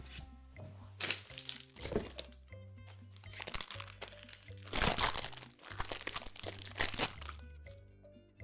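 Crinkly plastic sandwich wrapper being pulled open and peeled off a sandwich, crackling in several spells, loudest about five seconds in. Soft background music plays underneath.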